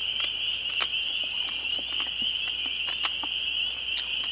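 A steady, high-pitched insect chorus trilling without a break, with a few short, sharp crackles of dry, charred leaves being handled.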